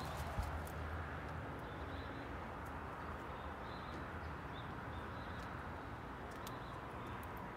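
Outdoor backyard ambience: a steady low background hum and hiss, with short, faint high bird chirps repeating now and then and a few light clicks.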